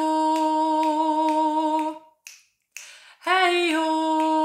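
A woman sings 'hey ho' twice in long held notes, the first sung phrase ending about two seconds in and the second starting a second later, stepping up in pitch near the end. Regular light clicks keep the beat under the singing.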